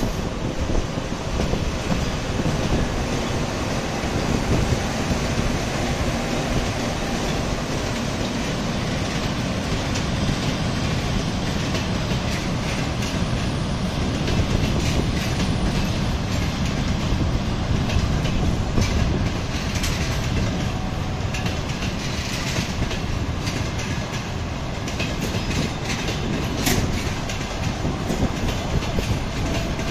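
A pair of ChS7 electric locomotives hauling a passenger train rolls past, followed by its coaches: a steady loud rumble of wheels on rail, with wheels clicking over rail joints, the clicks thickest as the coaches go by.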